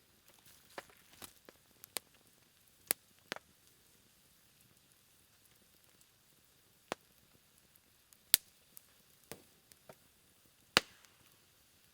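Campfire of low flames and embers crackling: scattered sharp pops at irregular intervals, the two loudest about eight and eleven seconds in, over a faint steady hiss.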